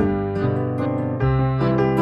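Background piano music: held keyboard chords, the bass note changing twice.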